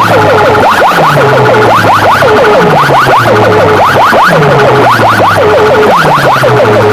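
Siren-like electronic sound effect blasted very loud through a competition sound system's loudspeakers: fast rising whoops in repeating groups over a pulsing low bass line.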